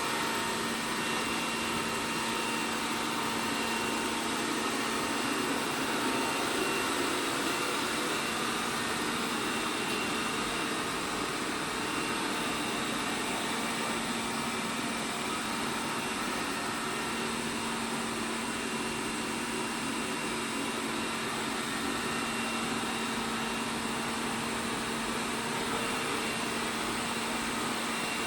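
ELARI SmartBot Lite SBT-002A robot vacuum running, a steady whir of its suction fan and brushes with a low steady hum.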